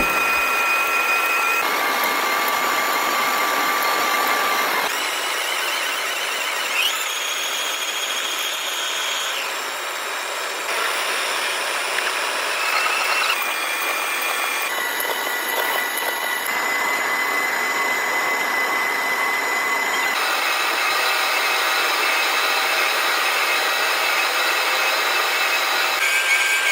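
Lathe cutting tool squealing as it turns a large cast sprocket: a steady high-pitched whine over a harsh cutting hiss. The pitch jumps to a new note every few seconds.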